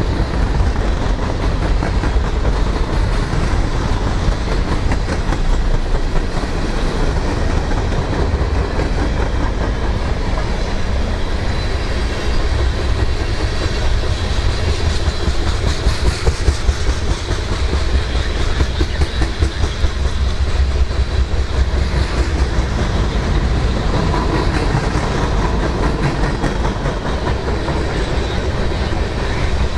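Freight train of gondola cars rolling past close by: steady rumble of steel wheels on the rails with continuous clickety-clack, a little louder around the middle.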